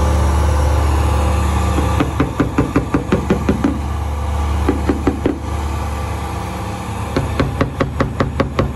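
A steady low machine hum stops about two seconds in. Runs of rapid metal knocks follow, about six a second, with a short pause and a brief cluster in the middle: tapping on the Corsa's steel rear quarter panel while its dent is worked out.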